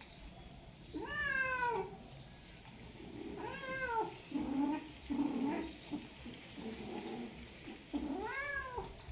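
Domestic cats yowling while mating. There are three long drawn-out calls that rise and then fall in pitch, about a second in, about three and a half seconds in and about eight seconds in, with shorter, lower calls between them.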